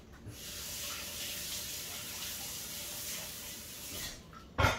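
Water tap running into a sink, rinsing the gunked-up impeller housing of a pump; the water stops about four seconds in. A sharp knock follows near the end.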